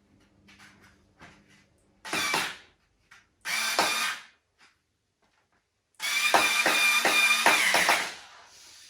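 Cordless electric screwdriver driving screws into the plastic frame of a baby rocker, running in two short bursts and then one longer run of about two seconds.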